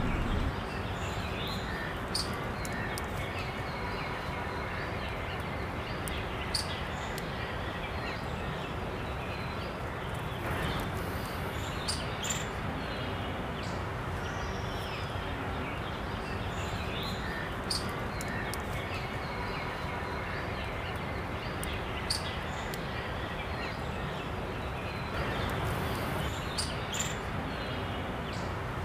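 Outdoor ambience: a steady background hiss with scattered short, high bird chirps every second or two.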